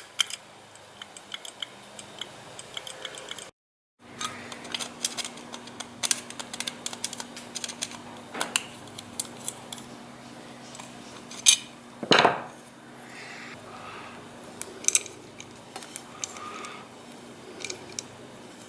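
Small metal clicks and clinks of a Holley carburetor's parts and hand tools being handled while its float is adjusted and the bowl is put back together, with a faint steady hum underneath. A louder clatter and scrape comes about twelve seconds in.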